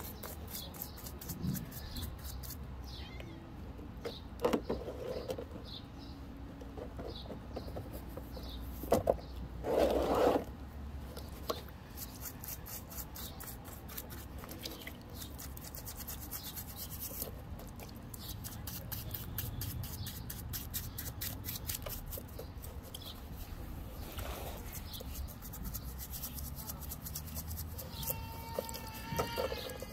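Paintbrush bristles scrubbing a wet, rough rock in quick strokes and swishing in shallow muddy water, with a few louder strokes, the longest about ten seconds in.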